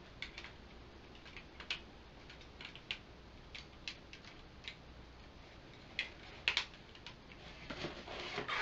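Irregular light clicks and taps of hard plastic toy parts being turned and fitted in the hands, with two louder clacks about six and a half seconds in. Rustling near the end as the hands go into a cardboard box.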